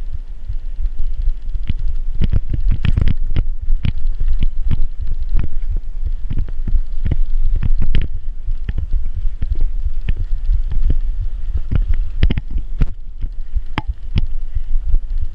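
Bicycle ridden over rough ground, heard close on the microphone: a steady low rumble with frequent, irregular knocks and rattles.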